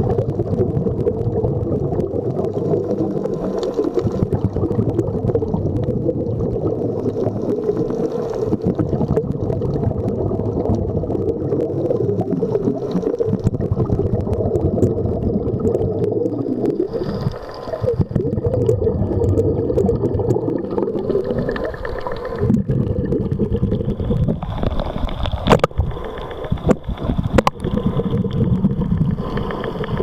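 Muffled underwater rumble and gurgling of water heard through a diving camera's housing. A few sharp clicks come in the last third, and a faint high whine runs under the later part.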